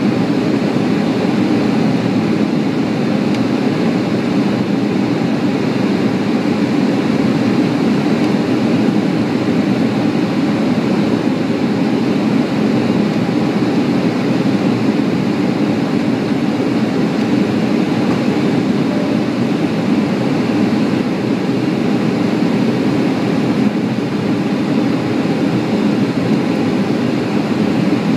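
Steady on-board noise of an Embraer ERJ-145 on final approach: airflow and its two rear-mounted Rolls-Royce AE3007 turbofans, heard as a loud, deep rushing noise that does not change.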